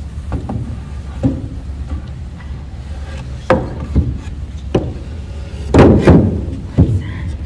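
Heavy wooden bridge planks knocking and clunking against the wooden frame as they are lowered into place, a string of separate hollow knocks with the loudest few about six seconds in.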